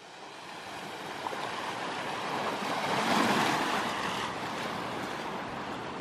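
Ocean surf: a steady wash of breaking waves that swells to its loudest about three seconds in, then eases off.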